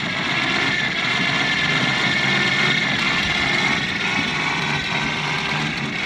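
Belt-and-pulley step-up drive with transmission spinning at speed, a steady whir with a high whine over a low hum.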